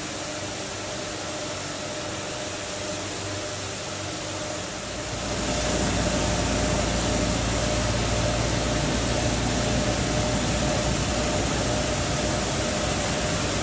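Automatic carpet-washing machine running: a steady mechanical hum and hiss with a constant whine, growing louder and deeper about five seconds in.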